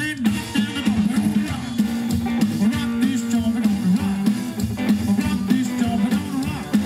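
Live rock and roll band playing: double bass walking a bass line under electric guitar and a drum kit keeping a steady beat.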